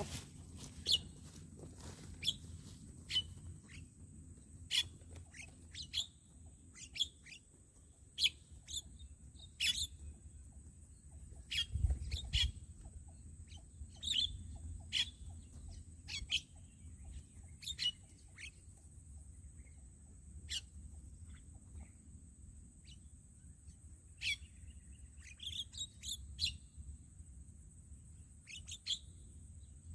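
Birds chirping: short, sharp calls repeated at irregular intervals, over a faint steady high-pitched tone.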